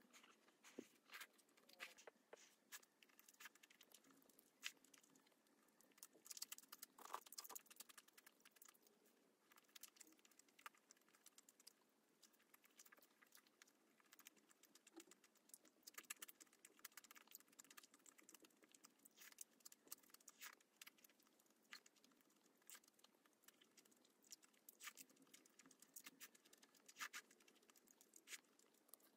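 Faint close-up eating sounds: a steady run of small, irregular wet clicks from chewing and slurping wheat noodles.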